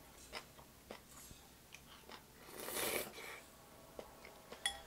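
A person eating ramen: a loud slurp of noodles a little past the middle, with chewing and light clicks of chopsticks and a spoon against a ceramic bowl. Near the end comes one short ringing clink of a utensil on the bowl.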